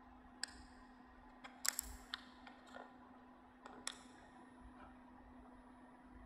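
A handful of sharp clicks and taps, about eight in the first four seconds, each with a short ringing tail, over a steady low hum.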